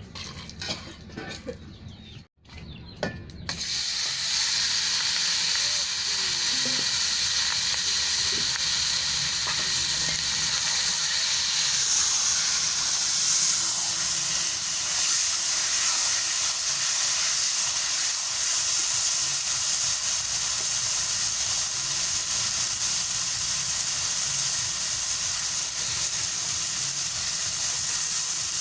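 Food frying in hot oil: a loud, steady sizzle that starts suddenly a few seconds in, as the food goes into the pan, and keeps up without a break.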